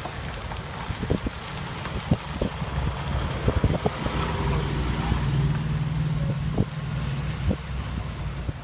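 Engine of a large road vehicle, such as a tour bus or semi-truck, running with a low hum that grows louder past the middle and then eases off, with wind buffeting the microphone in short thumps.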